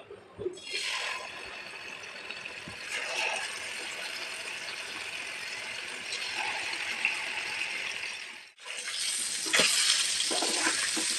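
Marinated fish pieces frying in hot oil in a pan, with a steady sizzle. The sizzle cuts off suddenly about eight and a half seconds in and comes back louder.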